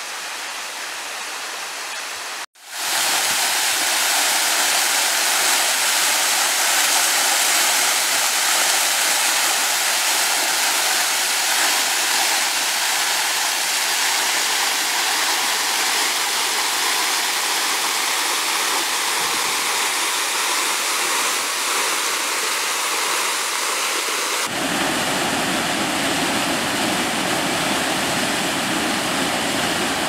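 Waterfalls rushing steadily. About two and a half seconds in, the sound cuts off sharply and comes back louder: water pouring down a mossy rock face. Near the end it changes to a fuller, deeper rush, a small cascade pouring into a pool.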